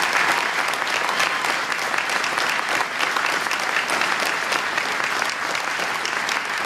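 An audience applauding steadily: many hands clapping together.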